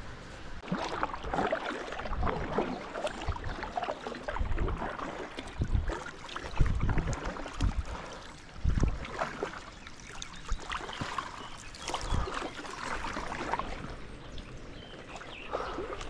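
Kayak being paddled on a river: paddle blades dipping and splashing in the water at an irregular pace, with repeated short low thumps.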